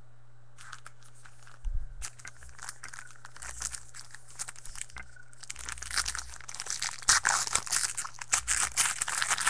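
Baseball card pack wrapper being torn open and crinkled by hand: sparse crackling at first, growing denser and louder from about halfway.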